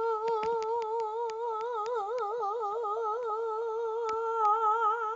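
A child's voice holding one long note with a wavering vibrato for about five seconds, with faint clicks scattered through it.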